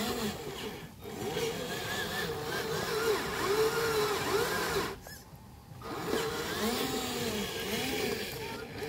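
Electric motor and gearbox of a loaded RC dump truck whining, its pitch rising and falling over and over as the throttle is worked. The whine breaks off briefly about a second in and again for most of a second around five seconds in.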